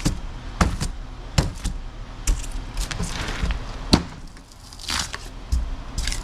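Styrofoam core and rotten wood framing of a steel door being broken and pulled apart. Irregular sharp cracks and snaps, the loudest about four seconds in, with stretches of crackling tearing around the three-second mark and again about a second later.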